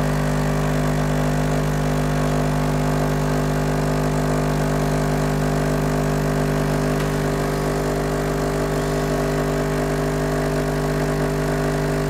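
Breville Barista Express Impress espresso machine's vibratory pump humming steadily as it pushes water through the coffee puck, mid-extraction of a double shot.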